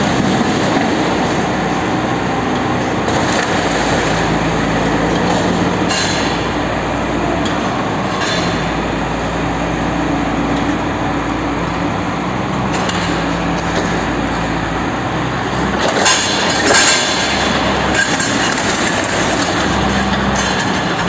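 Heavy machinery running with a loud, steady rumble, a low hum and rattling, as in the mechanical destruction of a refrigerator; a few louder clanks come about sixteen to seventeen seconds in.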